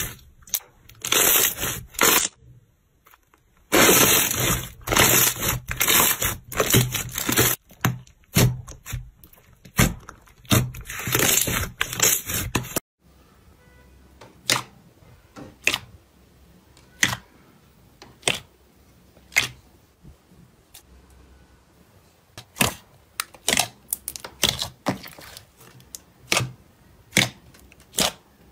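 Hand pressing and stretching clear blue slime, making a loud, dense run of wet clicks and pops. About 13 seconds in it gives way to fingers poking orange slime in a tub, with quieter single sharp pops roughly once a second, sometimes in quick clusters.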